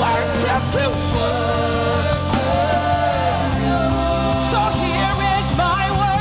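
Gospel praise-and-worship music: a singer's voice with vibrato over band accompaniment and steady bass notes. The bass changes note about halfway through.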